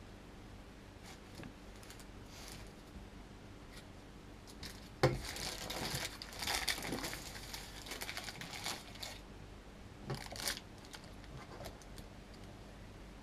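A sharp knock, then baking paper crinkling and rustling for about four seconds as it is handled under a wire cooling rack holding a frosted cake, with a shorter burst of crinkling about ten seconds in.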